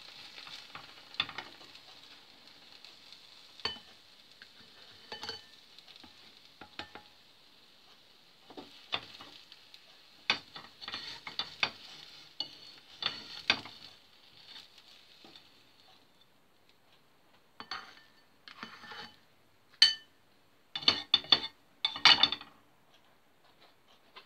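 Food being served from a sizzling frying pan into a ceramic bowl: a utensil scrapes and taps against the pan and bowl while the fat sizzles steadily. The sizzle fades out about two-thirds of the way through, and a cluster of louder scrapes and clinks comes near the end.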